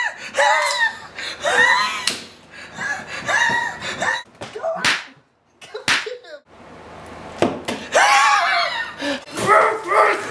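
A man's wordless screaming and shrieking, broken by several sharp slaps, with a stretch of hiss a little past the middle.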